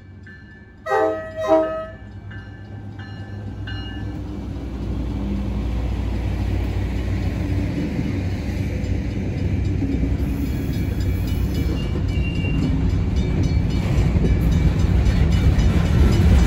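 Two short blasts of a diesel locomotive's multi-tone horn about a second in. Then a pair of diesel locomotives rumbles past close by, steadily growing louder, and covered hopper cars roll by near the end.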